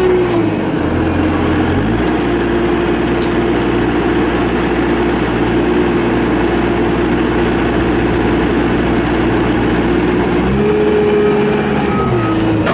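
Bobcat S250 skid steer's Kubota diesel engine running steadily. Its pitch dips just after the start, picks up about two seconds in, rises again about ten seconds in and drops back near the end.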